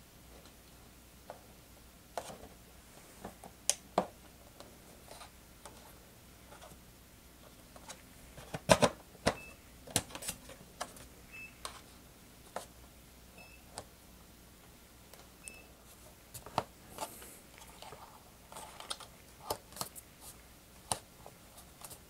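Scattered small clicks and knocks of the E-Flite PT-17 foam model biplane's wing strut parts being handled and worked into place, with a louder cluster of knocks about nine seconds in.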